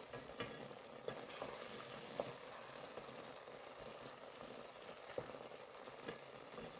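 Faint, steady sizzling and bubbling from a pot of chana dal and potatoes cooking down on a low flame as its last water boils off. A few light clicks sound now and then.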